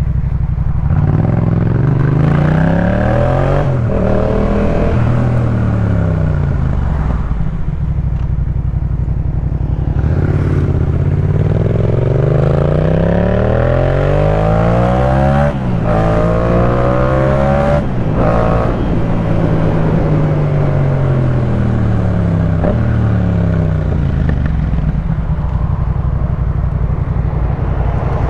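Yamaha MT-07's 689 cc parallel-twin engine breathing through a Jeskap K4 full aftermarket exhaust, accelerating hard with the pitch climbing and dropping sharply at each upshift, then easing off with the pitch falling before pulling again.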